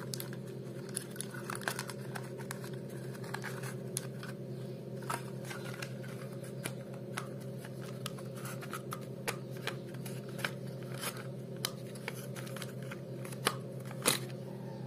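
Scattered light clicks and scratches of a plastic toy train's battery casing being handled and closed up, over a steady low hum.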